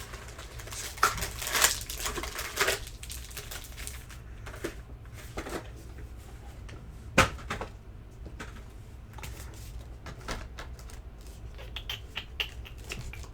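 Trading cards and foil packs being handled on a table: scattered light clicks, taps and rustles, with one sharp tap about seven seconds in.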